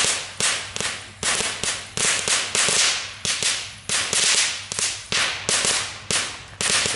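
Small Category 1 ground firework sparking along a gravel path, giving a steady run of short, sharp fizzing spurts, about two to three a second.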